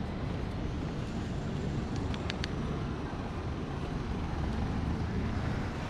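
Steady outdoor rumble of street traffic, with three short high chirps about two seconds in.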